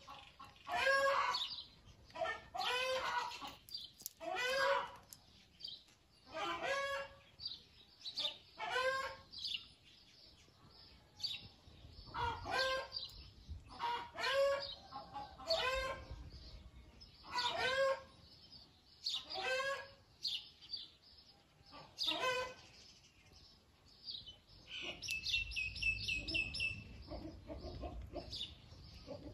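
A chicken calling over and over, about one call every second or two, with a couple of short pauses. Near the end comes a quick run of high chirps.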